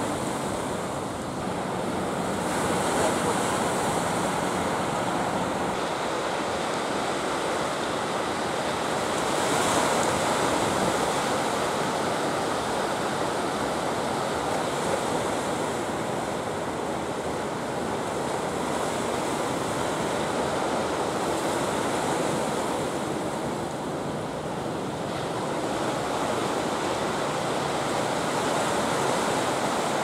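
Heavy ocean surf breaking and washing steadily, swelling a little about three and ten seconds in.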